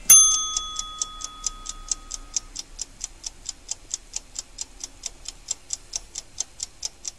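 Fast, even ticking like a clock, about four or five ticks a second. It is opened by a bright bell-like ding that rings out over about two seconds.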